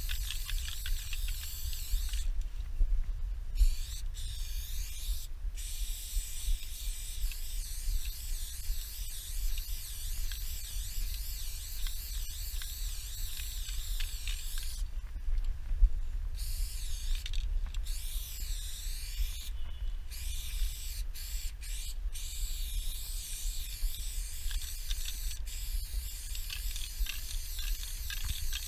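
Aerosol spray paint can hissing in long sprays, with short breaks where the nozzle is let go, several near the start and a few more in the middle. A steady low rumble runs underneath.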